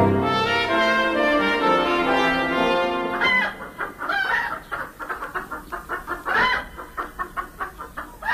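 A musical phrase ends about three seconds in, and then hens cluck over and over in quick, choppy calls.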